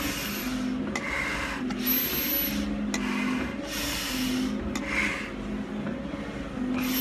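Heavy breathing through a firefighter's face mask: hard breaths hiss through the mask about once a second, from a climber working hard near the top of a long stair climb.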